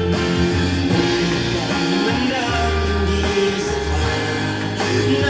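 A song with singing and a strong bass line, received from an FM station on a Panasonic stereo's tuner and played through its loudspeakers with the bass boost switched on.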